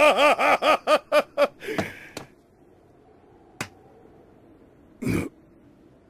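A man's voice in a rapid run of about ten short rhythmic cries, each rising and falling in pitch, ending in a longer harsher cry about two seconds in. Then come a single sharp crack and, about five seconds in, a brief burst of noise.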